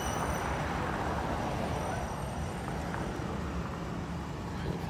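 Steady outdoor background noise: a low, uneven rumble under a broad hiss, with no distinct events.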